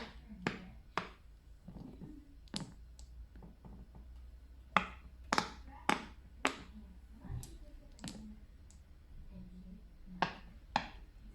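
Fidget toys being handled, giving about a dozen sharp, irregular clicks and pops, some in quick runs of two or three and some a second or two apart.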